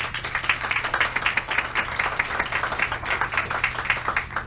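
Audience applauding, many hands clapping at once, dying away at the end.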